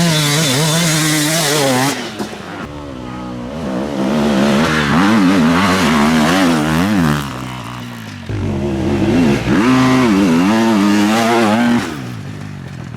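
Enduro motorcycles riding by in three loud passes, each engine's pitch rising and falling over and over as the throttle is opened and shut.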